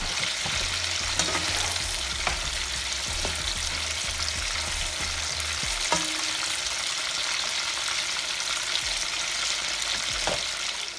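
Chunks of smoked turkey frying in hot oil in a pan: a steady sizzle with a few sharp clicks, as a spoon stirs the pieces about halfway through.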